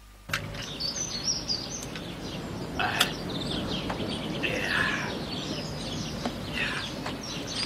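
Outdoor ambience with small birds chirping over a steady background noise, and one sharp click about three seconds in.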